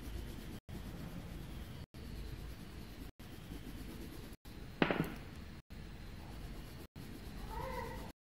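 Faint low room noise that drops out briefly about every second and a quarter. One sharp click comes about five seconds in, and a short pitched sound comes near the end.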